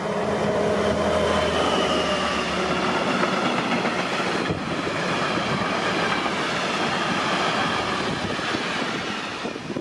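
A train running past at close range: a steady loud noise of wheels on the rails with thin whining tones above it, easing off slightly near the end.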